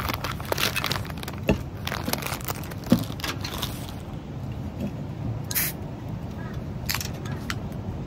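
Plastic snack packaging crinkling and rustling as it is handled, densely for about the first half; after that only a few scattered rustles over a steady background hum.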